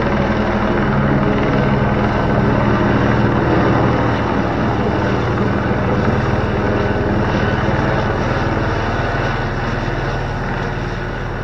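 Helicopter passing low overhead, its rotor beating fast and steadily. Loud throughout, easing slightly in the last few seconds as it moves off.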